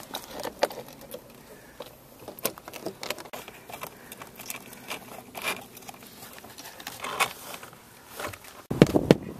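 Irregular light taps and clicks from handwork with roofing and siding materials and tools, a few sharper knocks among them; a louder stretch of background noise sets in near the end.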